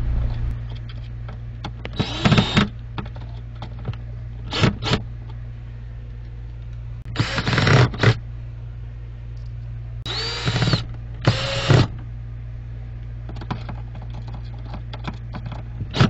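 Cordless drill driving screws into a metal angle bracket on a wooden dresser frame, in about five short bursts, some in quick pairs. In one burst the motor's pitch rises and then falls.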